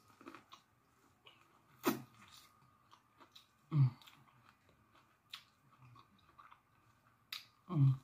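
A person chewing a mouthful of food close to the microphone, with wet mouth clicks and smacks, and three short low hums about two, four and eight seconds in.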